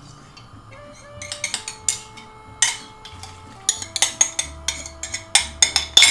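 A metal spoon scraping and knocking against a ceramic bowl, a run of sharp clinks that starts about a second and a half in and comes thickest near the end. Soft background music holds faint sustained notes underneath.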